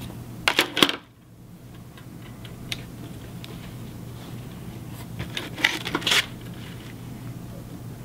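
Scissors snipping and scraping at thin wire to strip its insulation: a few sharp clicks about half a second in and another cluster about five to six seconds in, over a low steady hum.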